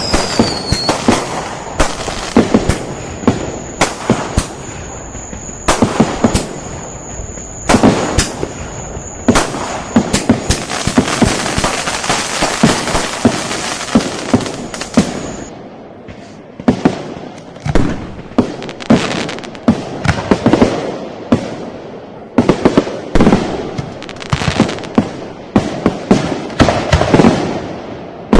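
Firecrackers and fireworks going off: many sharp bangs at irregular intervals over dense crackling. A falling whistle fades out at the very start, and a thin steady high tone runs through the first half before stopping abruptly.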